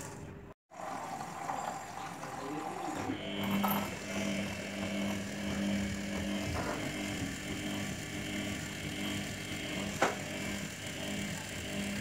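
IFB front-load washing machine running its wash cycle, the drum turning wet, sudsy laundry with a steady mechanical hum. The sound breaks off briefly just after the start, and a single sharp click comes about ten seconds in.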